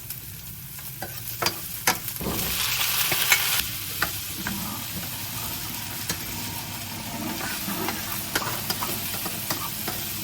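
Food sizzling in a hot pan while it is stirred, with a utensil clicking against the pan now and then. The hiss swells loudest from about two to three and a half seconds in, then settles to a steady level.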